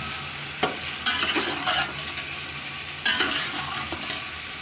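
Pieces of bone-in meat in yogurt masala sizzling in hot oil in a metal pot while a spatula stirs them. There are several irregular scraping strokes against the pot over a steady sizzle: the bhuna stage, frying the masala and meat dry.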